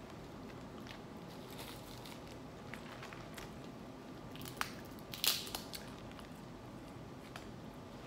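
Boiled crawfish shells being cracked and peeled by hand: scattered small clicks and crunches, with the sharpest cracks a little before and a little after five seconds in.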